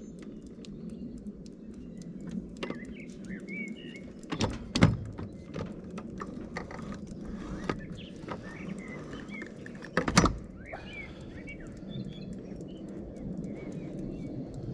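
Outboard motor and its new motor mount clunking as the motor is raised, two loud clunks about four and a half and ten seconds in. Birds chirp over a steady low hum.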